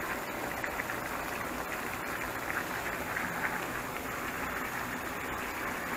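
Barbecue sauce bubbling and sizzling around chicken thighs in a non-stick frying pan, a steady simmer as the sauce reduces and thickens.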